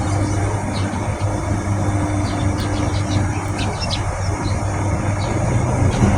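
Steady low engine rumble under a constant rushing noise, with a few faint high clicks now and then.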